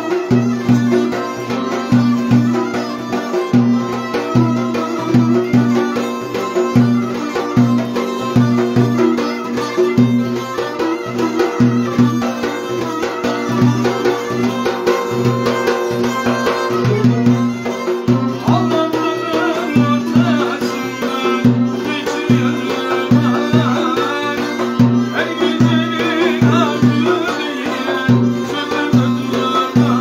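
Turkish folk dance tune played live on violin and twelve-string cümbüş, with a frame drum beating a steady rhythm underneath.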